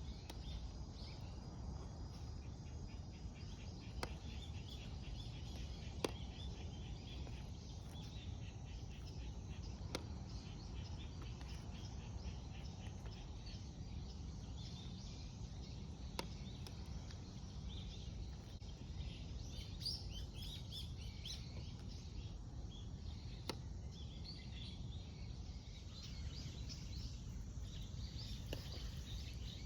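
Small birds chirping intermittently over a steady low rumble, with a few isolated faint clicks.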